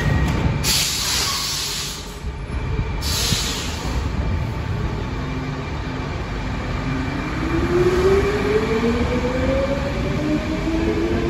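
Stockholm metro C14 train pulling out of a station. Two sharp hisses of air come in the first few seconds, then a whine rises steadily in pitch as the train gathers speed, over the rumble of wheels on rail.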